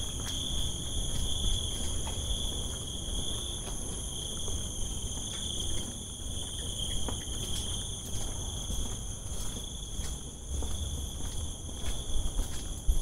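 Insects chirring steadily in one high continuous tone, over a low rumble and a few faint light taps.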